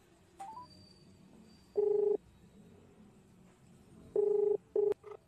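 Phone ringback tone on an outgoing call that is still dialing: a steady low beep in short bursts of under half a second, once about two seconds in and three times in quick succession near the end. A short rising two-note beep sounds about half a second in, as the in-call volume is adjusted.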